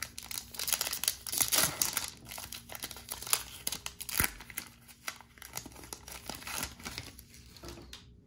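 Wrapper of a 2020 Topps Baseball Holiday trading-card pack being torn open and crinkled by hand, a dense run of crackling and tearing, loudest in the first few seconds and easing off near the end.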